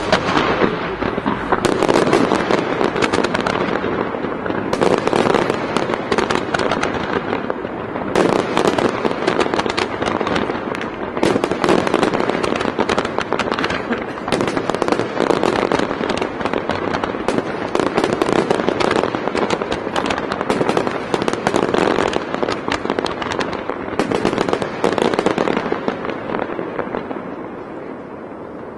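Aerial fireworks display: shells bursting in a dense, continuous barrage of bangs and crackling, thinning out over the last few seconds.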